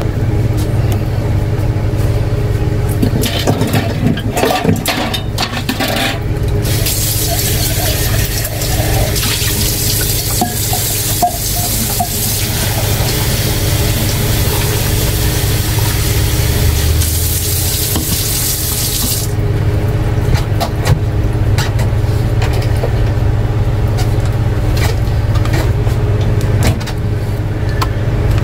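Tap water running for about thirteen seconds as freshly picked green tomatoes are rinsed for frying. Scattered knocks and clatter of handling come before and after it, over a steady low hum.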